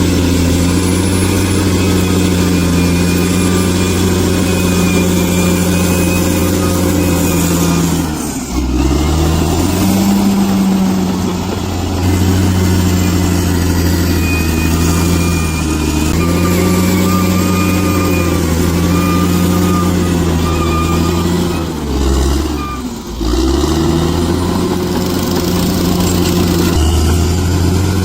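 Bulldozer's diesel engine running hard and steady. Its pitch drops sharply and comes back up twice, about eight seconds in and again a little past twenty seconds, as the revs fall and pick up again.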